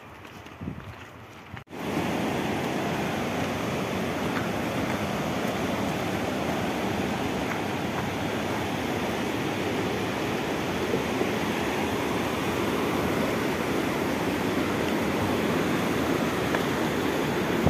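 A few footsteps, then, after an abrupt cut about two seconds in, the steady loud rushing of a river.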